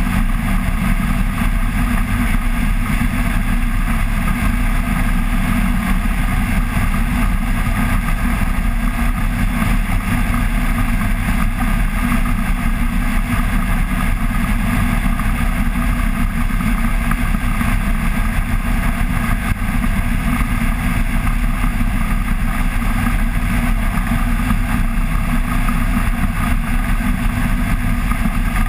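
Flex-wing microlight trike in level cruising flight, its engine and pusher propeller running steadily at constant power, with wind rushing over the microphone.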